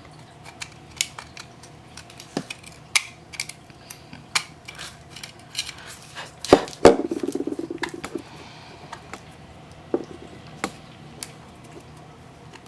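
Small hand tool clicking, tapping and scraping on an iPhone's camera bezel, clearing away leftover glass and adhesive. Two sharper knocks come about six and a half seconds in, followed by a short rasping scrape.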